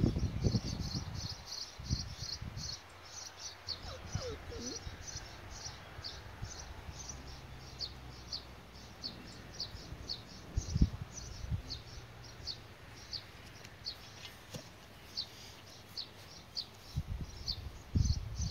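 An insect chirps steadily outdoors, a short high chirp about two to three times a second. A few low thumps and rumbles break in, the loudest about eleven seconds in and near the end.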